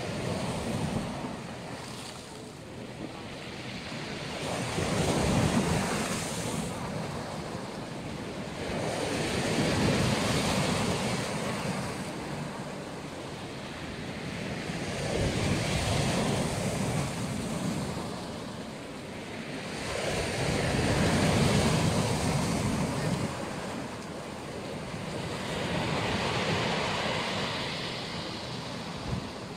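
Black Sea waves breaking on the shore. Five waves surge in and wash back, about one every five seconds.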